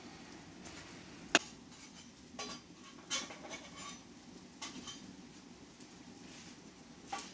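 Kitchenware handled, giving a few scattered clinks and knocks, the loudest a sharp knock about a second in, over a faint steady hum.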